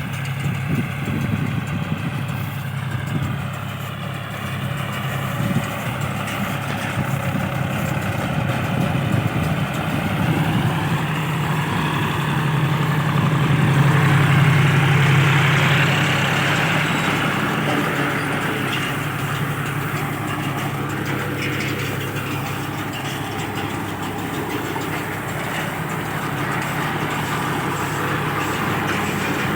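Tractor engine running a round straw baler: a steady low drone with a wavering higher whine over the first few seconds, swelling louder about halfway through and easing off again.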